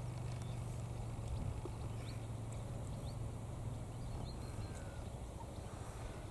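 A steady low hum, with a few faint, short, high bird chirps.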